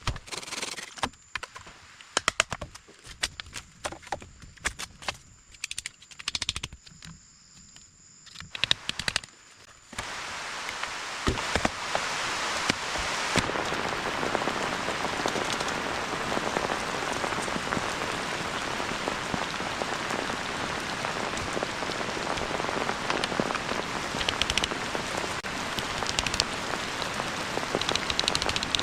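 Scattered sharp clicks and knocks for about ten seconds, over a faint high steady tone. Then heavy rain cuts in suddenly and falls steadily.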